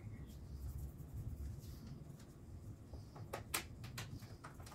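A few light, sharp clicks of a small screw and hand tool being handled and fitted into a motorcycle's plastic under-seat panel, the loudest about three and a half seconds in, over a faint low hum.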